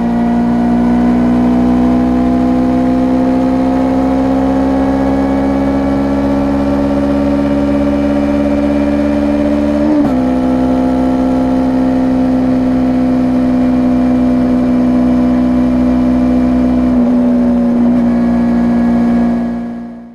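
2019 Honda CBR250RR parallel-twin engine through an Akrapovic slip-on muffler, pulling under throttle at highway speed with its pitch slowly rising. About ten seconds in the pitch dips briefly, then holds steady, and the sound fades out at the very end.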